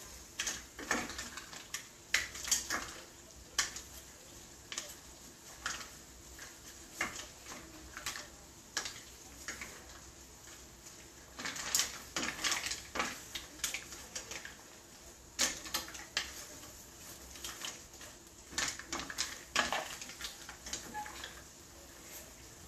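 Mussel shells clattering against each other and a stainless steel pot as they are stirred with a wooden spatula, in irregular clicks and knocks.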